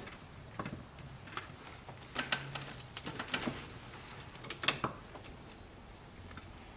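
Brake master cylinder being worked by hand onto the brake booster studs: a scatter of light metallic clicks and knocks, busiest between about two and five seconds in.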